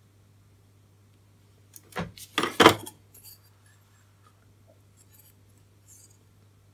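A brief clatter of small hard tools and objects knocking on a workbench during hand-soldering of a circuit board: a quick run of sharp clicks and knocks about two seconds in, then a few faint ticks.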